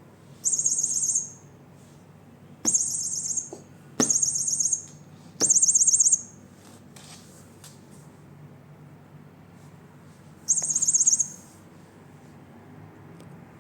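Electronic toy mouse for cats giving five short, high trilling chirps, each under a second, with a sharp knock at the start of three of them as the toy is batted.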